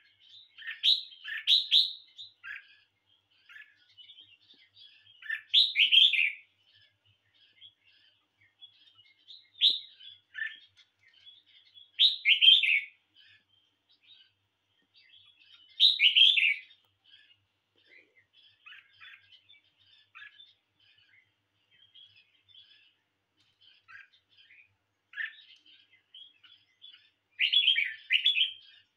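Red-whiskered bulbul singing: short, loud, bubbling phrases every few seconds, with a long pause before the last one, and soft chirps in between.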